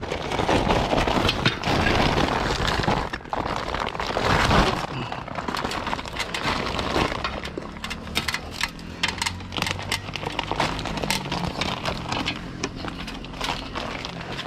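Woven plastic (HDPE) sack crackling and rustling close up, scraping against roof tiles and an aluminium ladder, with many small clicks and knocks as someone climbs down. A low steady hum runs underneath in the second half.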